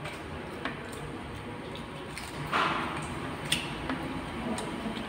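Steady background room noise with a few faint sharp clicks and a short hiss about two and a half seconds in.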